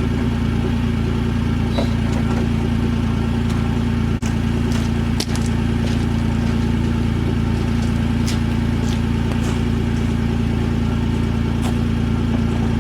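Troy-Bilt sidewalk edger's small petrol engine running at a steady, unchanging speed, spinning carbide-tip saw blades used as a stump grinder, with a few sharp clicks through it.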